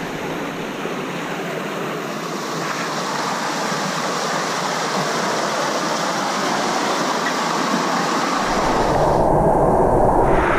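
Rushing water of a fast jungle stream and its small cascades, a steady loud hiss that grows slightly louder. About eight seconds in the sound changes abruptly and takes on a deeper rumble of water pouring over rock.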